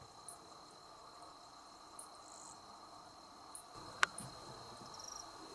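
Crickets and other night insects calling faintly: a steady high drone with a short high chirp repeating about every second and a half. A single sharp click about four seconds in.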